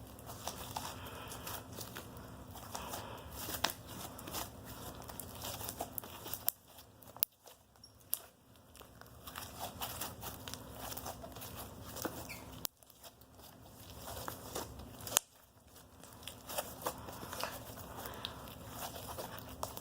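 Clear-glue slime being stretched and squeezed by hand, giving off scattered small clicks and crackles, with a few brief pauses.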